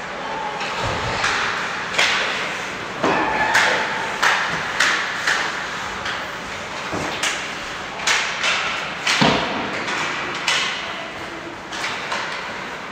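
Ice hockey game play: about a dozen sharp clacks and thuds of sticks and puck, and of the puck and players hitting the boards, scattered irregularly, over a steady rink background.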